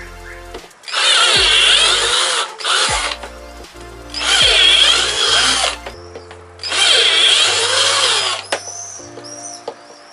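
Cordless drill boring holes through a plastic pipe in short bursts, about a second each, four times, the motor pitch wavering as the bit cuts through. Background music plays between the bursts.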